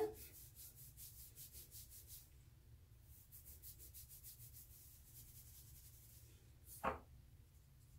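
Fingertips rubbing dry-shampoo powder into hair and scalp: a faint, rapid scratchy rustle in spells. A single brief, louder sound comes about seven seconds in.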